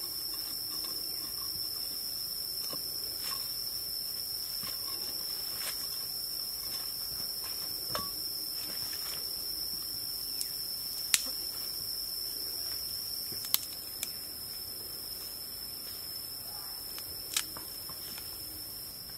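Steady, high-pitched drone of insects in the forest, with several sharp clicks and scrapes from a small metal blade digging into the soil.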